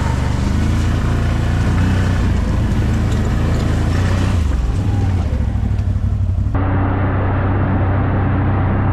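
ATV engine running steadily while riding over a gravel riverbed, with tyre and gravel noise. About two-thirds through, the sound cuts abruptly to a duller, muffled engine drone.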